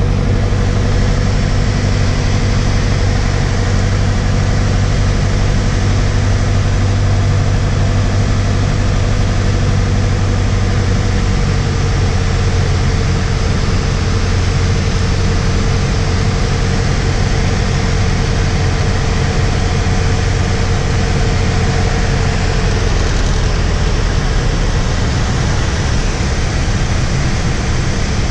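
Engine and propeller of a single-engine light aircraft droning steadily, heard inside the cockpit on final approach to landing. The drone's tone changes about halfway through and again a few seconds before the end.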